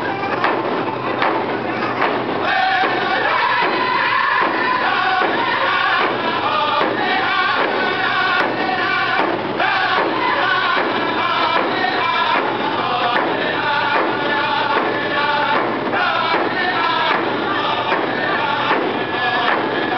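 Round dance song: a group of singers singing together in unison over a steady, evenly repeating beat of hand drums.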